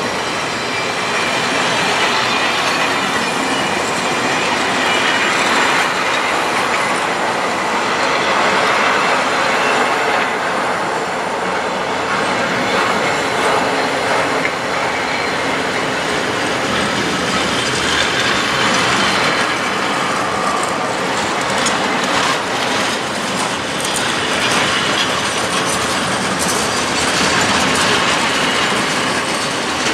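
A long freight train of open coal wagons rolling past close by as it gathers speed after a stop: a loud, steady rumble and rattle of steel wheels on the rails, with a few sharper clacks in the second half.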